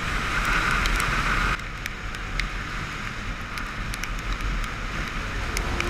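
Wind rushing over a helmet-mounted camera on a moving motorcycle, with the engine's low rumble underneath and scattered faint ticks. About a second and a half in the sound changes abruptly and gets quieter.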